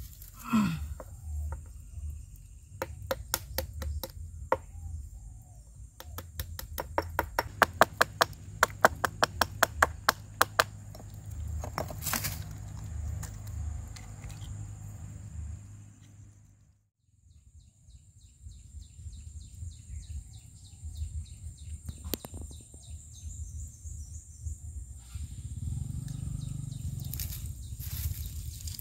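A quick run of sharp knocks, about four to five a second for several seconds, with a few more scattered knocks around it, as a hooked frog is handled on a wooden log. A steady high-pitched drone runs underneath.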